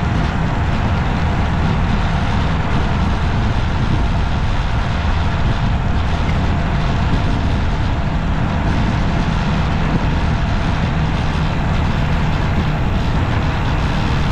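Steady road and traffic noise from a moving vehicle, an even low rumble with a hiss that does not change.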